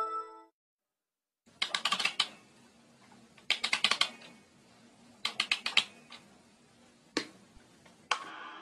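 Sampled printer noises: three short bursts of rapid mechanical clicking about two seconds apart, then single clicks and a steady whirr starting near the end.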